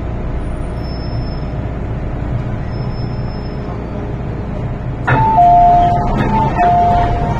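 Steady rumble of an MTR M-Train inside the carriage. About five seconds in, the doors open with a sudden clunk and the door chime sounds twice, each time a higher note followed by a lower one.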